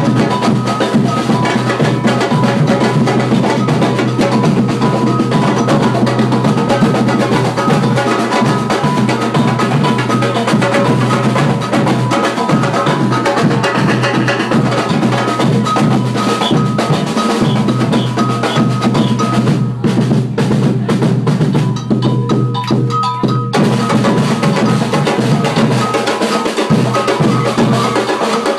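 Samba drum ensemble playing a steady rhythm on bass drums and snare drums. The sound goes muffled for a few seconds about twenty seconds in.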